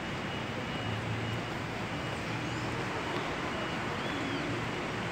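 Steady city traffic ambience, an even rumble and hiss of distant road traffic, with a few faint high chirps.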